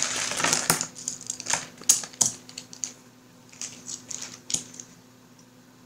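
A plastic bag crinkling, then small acrylic game counters clicking and tapping against each other as they are handled, with a few sharp clicks around two seconds in and lighter ticks after.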